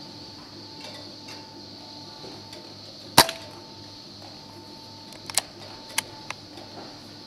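A single sharp shot from a Brocock Compatto PCP air rifle about three seconds in, followed a couple of seconds later by a few quieter clicks, over a faint steady hum.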